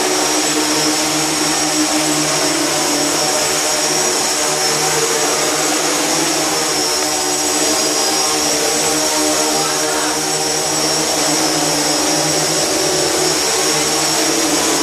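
SK450-frame X8 octocopter flying, its eight motors and propellers making a steady buzzing drone with several pitched tones that waver slightly.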